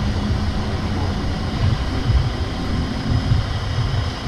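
Wind rumbling and buffeting on the microphone, with a steady low engine hum underneath from the truck hauling the boat trailer.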